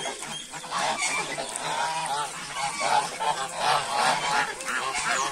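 A flock of domestic geese, Chinese and African geese together, honking repeatedly in many short, overlapping calls.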